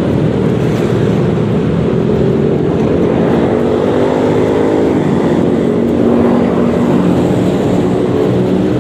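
Yamaha XMAX 300 scooter's single-cylinder engine running while riding in traffic, under steady wind noise on the microphone. A steady engine tone comes up about three seconds in.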